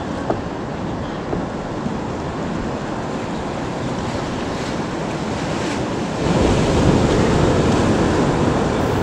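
Ocean surf washing below the pier, with wind rushing on the microphone, growing louder about six seconds in.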